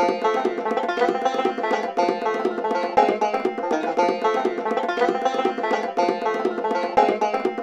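Bluegrass music with fast banjo picking.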